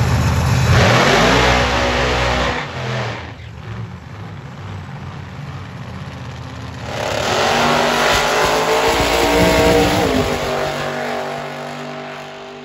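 Drag-racing car engines at full throttle, cutting off about two and a half seconds in. A second loud run of engine noise starts about seven seconds in, then drops in pitch and fades away.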